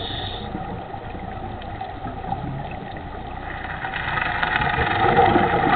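Muffled, rushing water noise that gets louder about three and a half seconds in.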